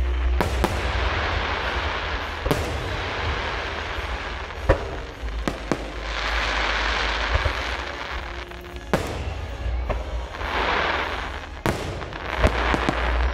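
Fireworks display: aerial shells bursting with sharp booms, about half a dozen, interleaved with swelling washes of crackling hiss from the bursting stars.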